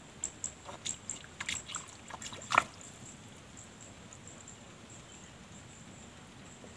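Small splashes and plops at the water's surface, a run of light ticks ending in one sharper plop about two and a half seconds in, then only still water.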